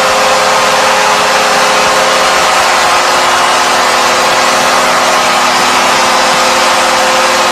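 Arena crowd cheering after a goal, over a steady, held multi-note goal horn.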